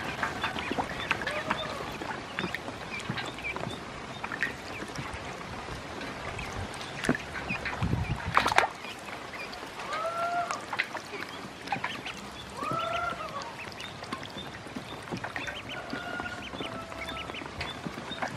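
A group of ducklings peeping constantly in short high notes while they paddle and splash in a steel bowl of water. Two longer, lower, arching calls come about ten and thirteen seconds in. A loud low thump with a sharp click comes about eight seconds in.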